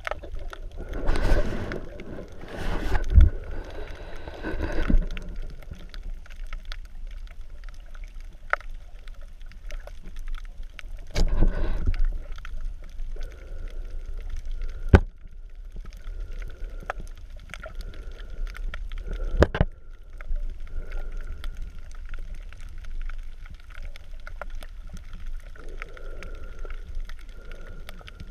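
Underwater sound picked up through a GoPro's waterproof housing: a muffled wash of moving water with gurgling. There are a few bursts of louder churning near the start and around the middle, several sharp clicks or knocks, and a faint steady high tone through the second half.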